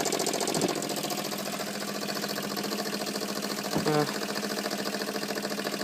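Mamod SE1 toy stationary steam engine running steadily, its cylinder chuffing in a fast, even rhythm over a hiss of steam.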